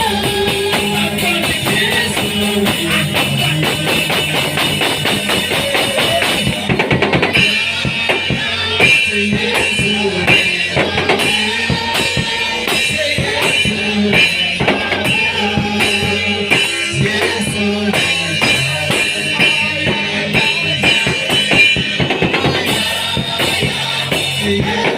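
Worship band music: sustained keyboard-like chords with a drum kit that comes in about seven seconds in and keeps a steady beat.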